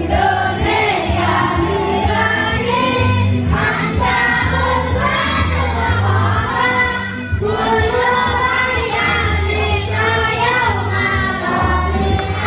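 A mixed group of women, men and children singing together in chorus over a musical accompaniment with a steady bass line.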